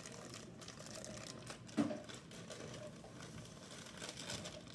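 Faint crinkling of a plastic bag of cake mix being handled and tipped to pour the powder into a mixing bowl, with one short, louder sound about two seconds in.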